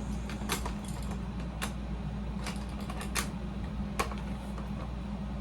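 About five sharp plastic clicks and knocks, scattered a second or so apart, from handling a battery-powered toy foam-dart blaster. Under them runs the steady hum of a room air conditioner.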